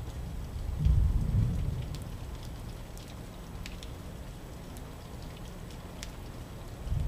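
Steady rain falling, with scattered single drops ticking close by. A low rumble of thunder swells about a second in and fades within a second or so.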